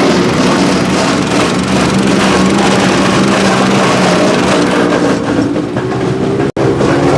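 Gas-engine wood chipper running loud and steady under load, with the crackle of wood being chipped. The sound cuts out for an instant near the end.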